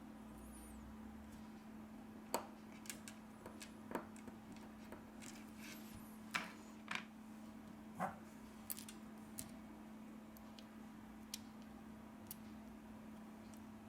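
Faint scattered clicks and light taps of small tools and smartphone parts being handled while a phone is put back together, over a steady low hum.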